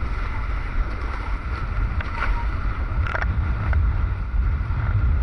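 Hobie 16 catamaran sailing at speed: a steady rush of wind buffeting the microphone and water along the hull. A thin steady tone runs underneath, and several sharp ticks come between about two and four seconds in.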